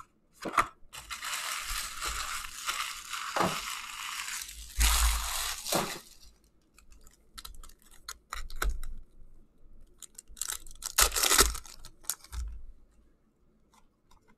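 Foil wrappers of Upper Deck Series 1 hockey card packs being torn open and crinkled: a long rip-and-crinkle from about one to six seconds in, then a few shorter crinkling bursts about ten to twelve seconds in.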